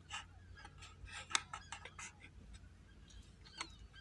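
Low steady hum inside a stationary car, with a few scattered light clicks and ticks; the sharpest comes about a third of the way in and another near the end.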